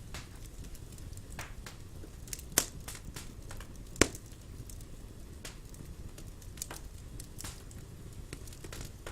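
Wood fire crackling in a fireplace: irregular sharp pops and snaps over a low steady rumble, with two louder pops a second and a half apart.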